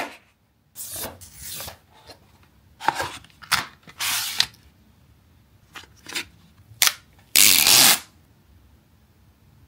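Samsung Galaxy S24 Ultra retail box and its packaging being handled and opened: a string of short cardboard slides, rustles and taps. The loudest is a rush of noise about half a second long near the end.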